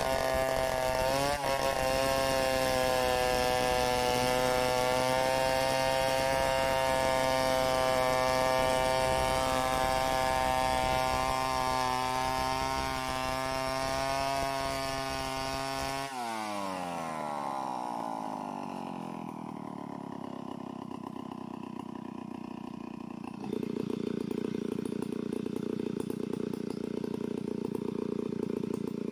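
Two-stroke chainsaw at full throttle ripping a log lengthwise in a freehand milling cut, with a steady high engine note. About halfway through the throttle is released and the engine winds down to idle, idling on through the rest, a little louder near the end.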